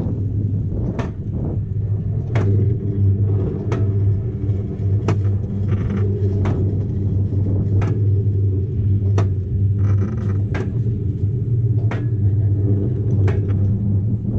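Mountain Innovations Rollbob alpine coaster sled rolling down its steel track: a steady low rumble and hum, with a sharp click about every second and a half.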